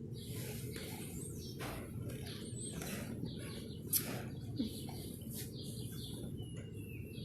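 Small birds chirping repeatedly over a steady low background rumble, with one sharp click about four seconds in.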